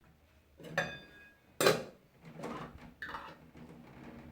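Kitchenware clattering: a clink that rings briefly about a second in, then a sharp knock, the loudest, followed by a few softer knocks and scrapes.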